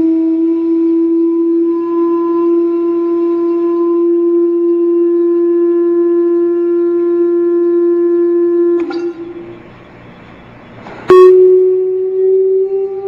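Steady, loud test tone with a buzzy edge, slowly rising in pitch, as used to vibrate sand into cymatic patterns. About nine seconds in it cuts off with a click, leaving a quieter hiss, and after about two seconds it starts again with a sharp click at a slightly higher pitch, again creeping upward.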